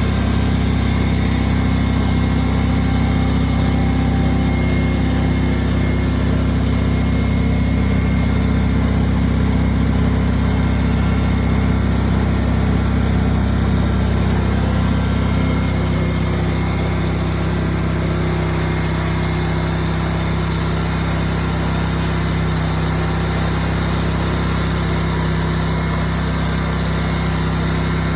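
Riding lawn mower engine running steadily. About halfway through the engine note shifts slightly and gets a little quieter.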